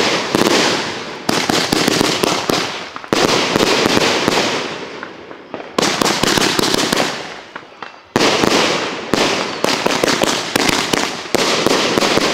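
Aerial fireworks going off in a rapid series: a new volley of bangs every second or two, each followed by dense crackling that dies away.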